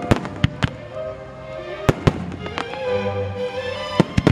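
Aerial firework shells bursting in sharp bangs: a few just after the start, two around two seconds in and a quick pair near the end. Music plays underneath.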